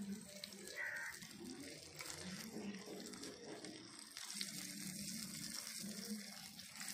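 Chopped tomatoes and shallots frying in oil in a clay pot, a faint steady sizzle, with soft scraping of a metal spoon stirring them in the second half.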